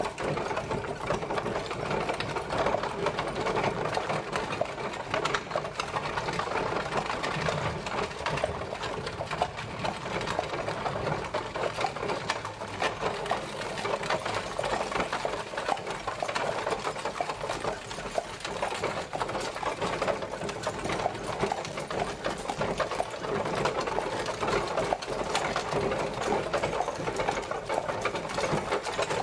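Horse-drawn carriage travelling: a steady, dense rattle and clatter of the moving carriage.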